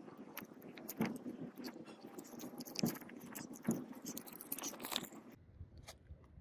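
Handling noise from an angle grinder's plastic motor housing and field coil being fitted together: scattered clicks and knocks of plastic and metal parts, with rustling scrapes. The background noise cuts off abruptly about five seconds in.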